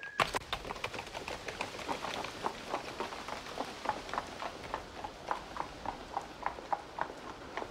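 Horse-drawn carriage on the move: horse hooves clip-clopping at a steady pace, about three strikes a second, over a steady background noise. The sound starts suddenly just after the beginning.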